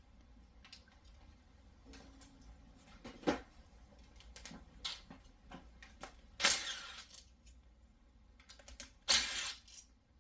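Metal engine parts and hand tools clinking and clattering during teardown of a V8 engine, as scattered light clicks and knocks with two louder, brief rattling clatters about six and nine seconds in.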